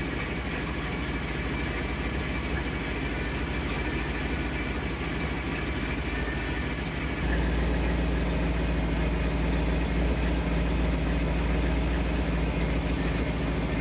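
1976 Ford F-150's engine idling steadily, kept running to give the power brake booster vacuum while the brakes are bled. The hum becomes louder and deeper about seven seconds in.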